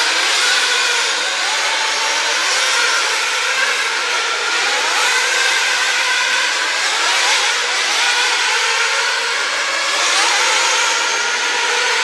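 Several radio-controlled off-road racing cars' motors whining at once, their pitches rising and falling as the cars accelerate and slow around the track.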